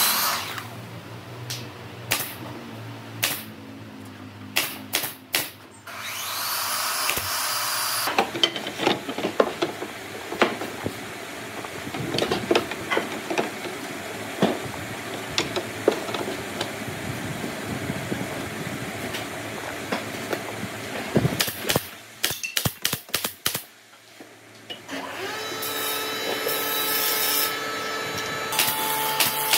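Woodworking shop sounds: repeated knocks and clicks of hand work on pine boards, with stretches of a small power tool running, a steady motor hum taking over near the end.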